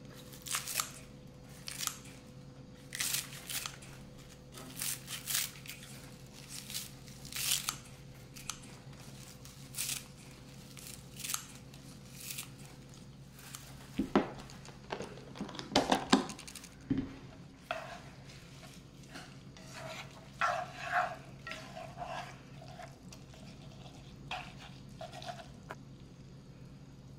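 Kitchen handling sounds: a run of crisp crunching, tearing strokes, then a few sharp knocks and clatters, the loudest about two thirds of the way through, then softer dull strokes, over a steady low hum.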